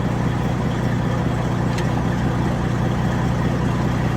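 Diesel engine of a 2007 Freightliner Century truck idling steadily, with a single light click about two seconds in.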